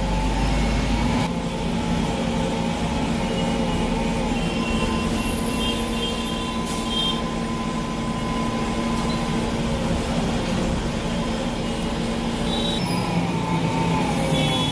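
Steady engine hum and road noise heard from inside the cab of a large vehicle moving slowly through traffic, with a few faint short high tones near the middle.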